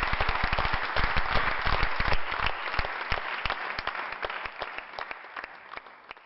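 Audience applauding, a dense patter of many hands clapping that fades out toward the end.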